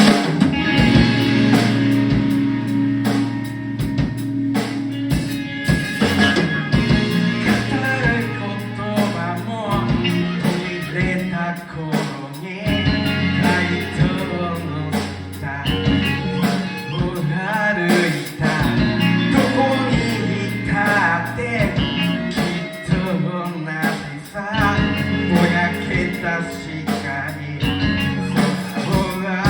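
A band playing a rock song: singing over electric guitar, bass and a drum kit.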